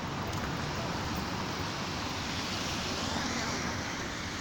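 A car driving off along the street, a steady rushing noise of engine and tyres.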